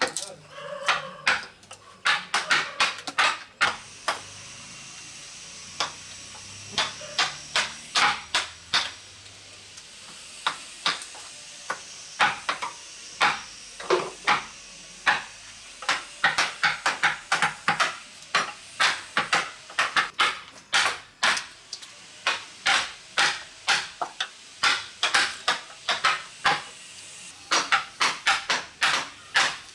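A wood-carving chisel is driven into a block of wood by repeated sharp blows, in quick runs of several strikes with short pauses between and a longer pause about four seconds in.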